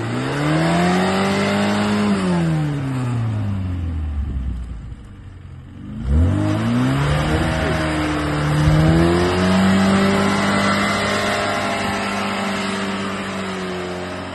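Old sedan's engine revving hard in two long surges while it drives circles on ice with the wheels spinning. The first rev climbs quickly, peaks and falls away after a few seconds; the second starts about six seconds in, climbs and holds high before easing off near the end.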